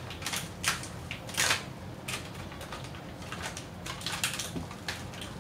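Small clear plastic bag crinkling and rustling as tiny plastic toy pieces are handled inside it, in irregular crackles with a louder one about a second and a half in.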